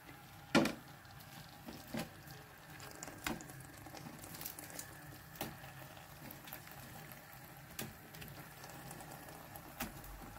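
Tomato masala sizzling softly in a frying pan, with a few scattered knocks as fried fish pieces are added to it, the loudest about half a second in.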